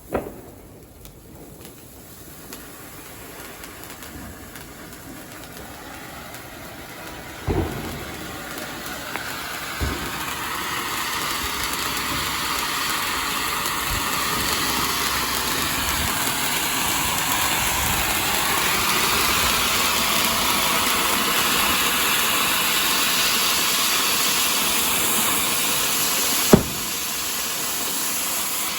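Fire burning with a steady hissing rush that builds up over about twenty seconds, broken by a few sharp pops and one loud crack near the end.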